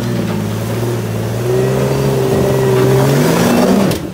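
Jeep Cherokee XJ's engine revving under load as it tries to crawl up a rock ledge, the pitch rising about three seconds in, then cutting off abruptly with a click near the end. The climb is failing because the front locker is not engaged.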